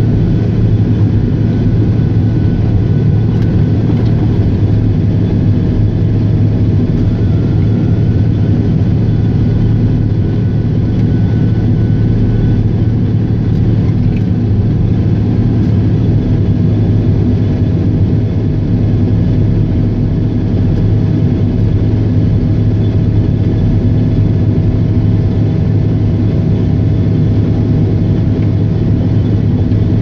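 John Deere 624J wheel loader's diesel engine running steadily under load, heard from inside the cab as a constant low drone with a faint steady whine above it.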